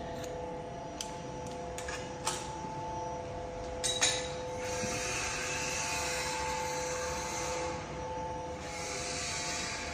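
Hiss of a 2.5 kW handheld laser welder welding 3 mm mild steel, in one run of about three seconds and a second run starting near the end. Before it come a few sharp clicks, and a steady machine hum with several tones runs throughout.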